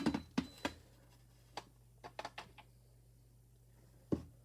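A few light clicks and taps from small hard parts being handled, with a louder knock near the end.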